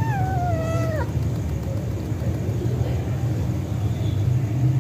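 A cat's drawn-out meow, falling in pitch and ending about a second in, over a steady low rumble.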